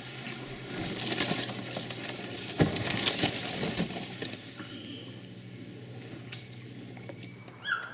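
Water lapping and a few sharp knocks and splashes as a small boat moves through flooded forest among the tree trunks, over a steady low hum.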